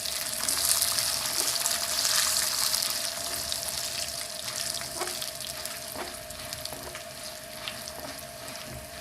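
Tempering of peanuts, cumin, mustard seeds, split chickpeas, black gram and dried red chillies sizzling in hot oil as it is stirred. The sizzle is loudest in the first few seconds and then eases, with a few sharp clicks later on and a faint steady hum underneath.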